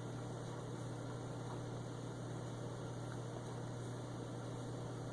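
Steady low electrical hum over a faint even hiss, with no other sound.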